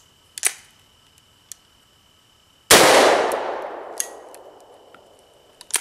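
A stockless, short-barrelled shotgun fired once, nearly three seconds in; the blast rings out and dies away over the next couple of seconds. Light metallic clicks of the gun being handled come before the shot and again after it.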